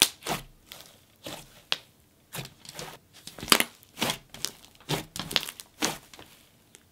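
Icy-texture slime squeezed and pressed by hand, giving a string of sharp, irregular sizzles and bubble pops.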